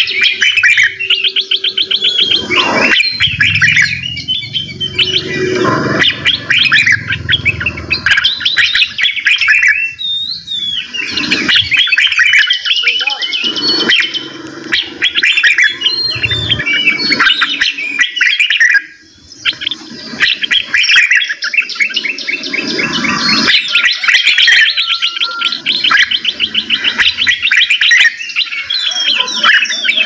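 Several songbirds singing at once: a dense mix of rapid trills and chirps that overlap without pause, dropping away briefly about two-thirds of the way in.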